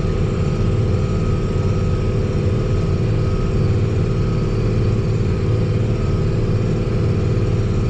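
Tractor engine running steadily under load, pulling a multi-bottom on-land moldboard plow through the field.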